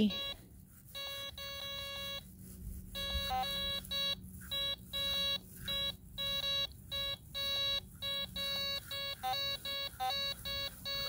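Dr. Otek MT9s kids' metal detector beeping: a steady electronic tone pulsing on and off in short, uneven runs, with an occasional slightly higher beep. It is its detection tone as the coil passes over an iron medal.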